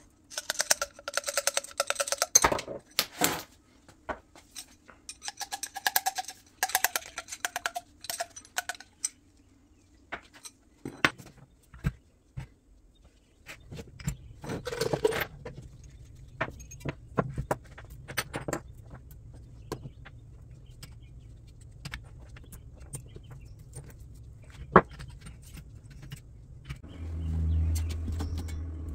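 Metal parts clinking, knocking and squeaking as they are handled. A low steady hum starts about halfway through and grows louder near the end.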